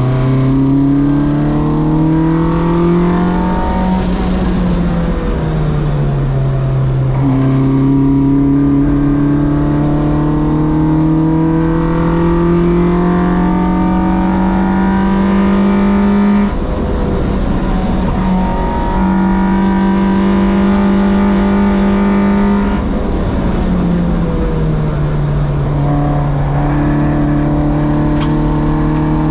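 Track-day car's engine running hard, its pitch climbing steadily along the straights and falling away when the driver lifts and brakes, three times, once with a sudden break about two-thirds through.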